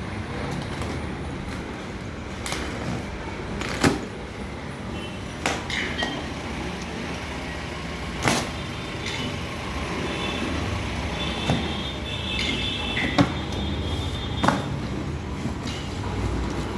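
Unpacking and handling a boxed walking-foot sewing machine: irregular knocks, clicks and scrapes, with a few brief squeaks in the middle, over a steady low rumble.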